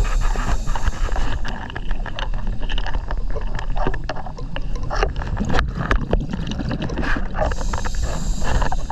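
Scuba regulator breathing recorded underwater: a hissing inhale about a second long at the start and again near the end, with bubbling, crackling exhaust and a low rumble of water noise between.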